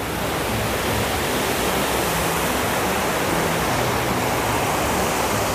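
Steady rushing of a mountain waterfall's falling water, an even hiss that holds level throughout.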